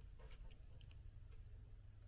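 Near silence, with a few faint light clicks of small metal engine parts being handled.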